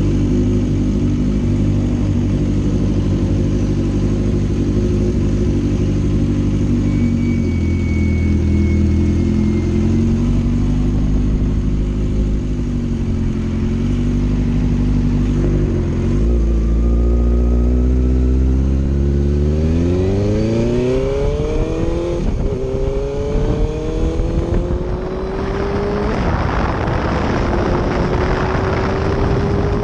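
Suzuki GSX-R750 inline-four engine pulling at low revs, then accelerating through the gears: the pitch climbs, drops back at each upshift and climbs again. Wind rush on the microphone builds as the speed rises near the end.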